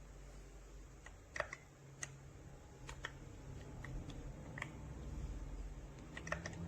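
A few scattered, irregular key presses on the YUNZII AL66 aluminum mechanical keyboard, faint clicks a fraction of a second to a second apart, over a low rumble.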